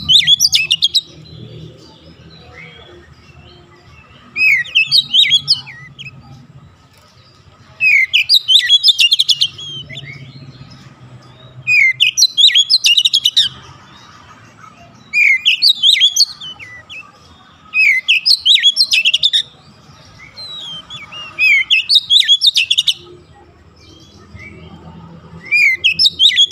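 Oriental magpie-robin singing loud song phrases of quick rising and falling whistles mixed with sharp clicks. Each phrase lasts about a second and a half and comes every three to four seconds, about seven times, with quieter gaps between.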